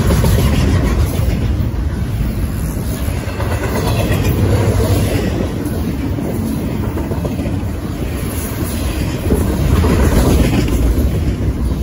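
Double-stack intermodal container train passing close by: the well cars' steel wheels rolling over the rails in a loud, steady noise.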